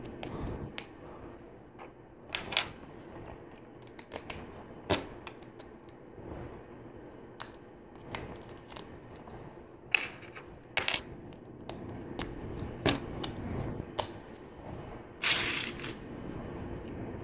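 LEGO Technic plastic pieces clicking and clattering as they are handled and pressed together: irregular sharp clicks a second or two apart, with a longer rustle of pieces near the end.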